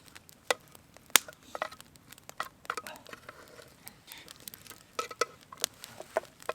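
Irregular sharp clicks and light taps, a dozen or so scattered through, a few with a brief ring.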